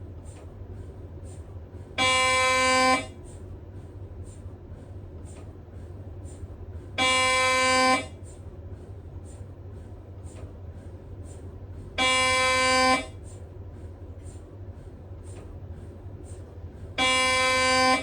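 Siemens Magnetom Spectra MRI scanner's gradient coils buzzing during a scan sequence: four steady one-second buzzes, one every five seconds. Between them come faint quick ticks, about two a second, over a steady low hum.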